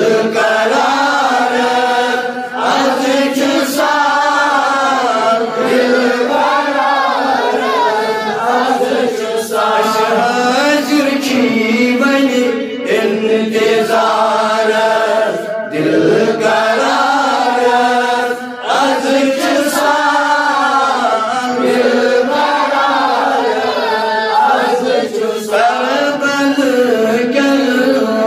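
A man's solo voice chanting a manqabat, a devotional poem, through a microphone. He sings long, bending melodic phrases with short breaks for breath between them.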